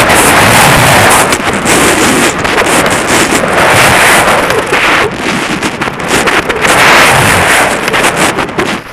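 Wind rushing over a helmet-mounted camera's microphone at skiing speed, with skis carving on hard-packed snow. The noise is loud and swells and eases every couple of seconds as the skier turns.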